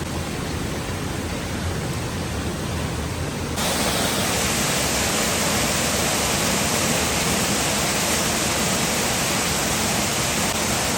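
Steady rushing of a fast-flowing river. About three and a half seconds in it turns suddenly louder and brighter.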